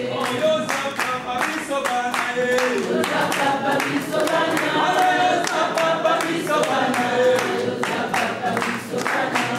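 A group of people singing together, accompanied by steady rhythmic handclapping.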